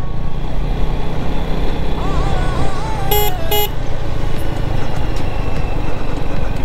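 KTM 250 Duke's single-cylinder engine running at steady speed under wind noise while riding. A vehicle horn toots twice in quick succession about three seconds in.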